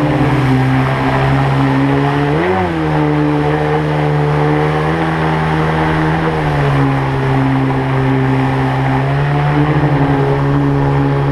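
Mercury 25 jet outboard driving a small tunnel-hull inflatable boat upstream through rapids. The engine runs steadily, with a brief rise and fall in pitch about two and a half seconds in, over rushing water.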